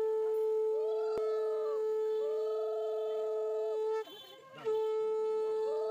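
Conch shell (shankha) blown in two long steady blasts, the first lasting about four seconds and the second starting after a short break, the traditional Bengali signal welcoming the bride. Women's wavering ululation (ulu) rises and falls over the first blast, and there is a sharp click about a second in.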